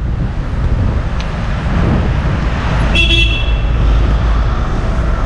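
Road traffic rumble with a short car-horn toot about three seconds in.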